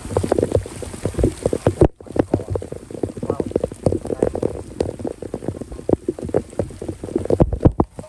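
Small hand trowel and gloved hands scraping and digging through dry, gravelly soil: an irregular run of quick scrapes and crackles of loose grit, broken off briefly about two seconds in.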